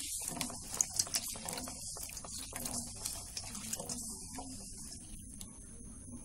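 Water sloshing and splashing in a steel bowl as a hand stirs and rubs small green chillies to wash them, with many small, irregular splashes and clicks.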